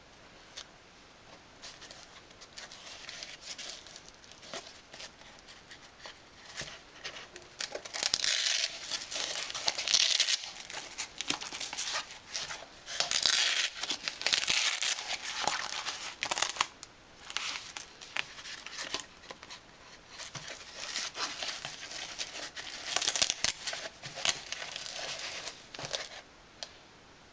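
Padded fabric protective insert for a PVS-14 night-vision monocular being handled, squeezed and folded: scratchy rustling and ripping noises in irregular bursts, loudest about a third of the way in, around the middle, and again past two-thirds.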